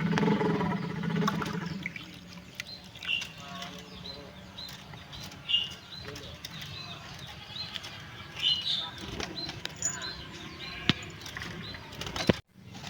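Male yellow-vented bulbul (trucukan) giving short, high chirps about twice a second, with a few louder calls mixed in. A louder low noise fades out in the first two seconds.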